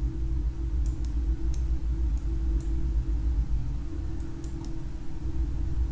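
A few scattered, faint clicks of a computer mouse over a steady low electrical hum.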